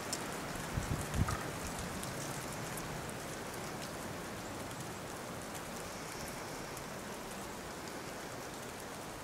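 A steady, even rushing hiss, with a few low bumps about a second in.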